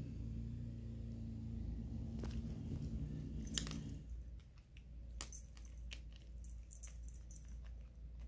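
A cat crunching dry kibble, with irregular crisp crunches and clicks that come more often in the second half. A steady low hum underneath stops about halfway through.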